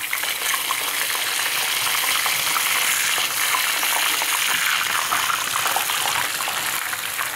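A whole fish deep-frying in a pan of hot oil: a steady sizzle with fine crackling.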